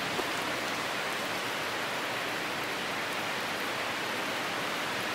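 Steady, even hiss of rain falling, with no change in level.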